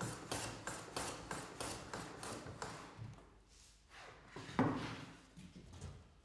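Low-angle jack plane shooting end grain on a shooting board: a run of quick, even strokes, about three a second, for the first three seconds. About four and a half seconds in there is a single louder wooden knock.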